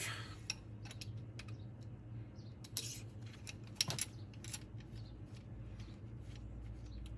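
Light metallic clicks and taps as a steel rocker arm is handled and rocked on its rocker shaft under a dial indicator, over a low steady hum.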